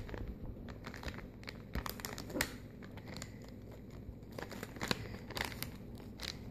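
A blind-bag packet crinkling and tearing as it is opened by hand: a run of sharp crackles, with a few louder snaps.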